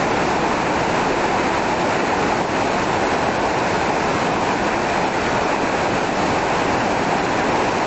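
Whitewater rapids of Babinda Creek tumbling over granite boulders: a loud, steady rush of water.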